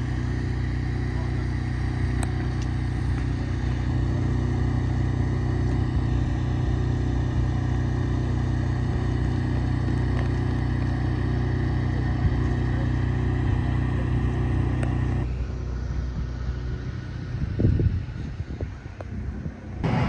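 Engine of a trailer-mounted construction machine running steadily, a low hum with a faint higher tone over it. About fifteen seconds in it cuts away abruptly, leaving a quieter rough background with a few knocks.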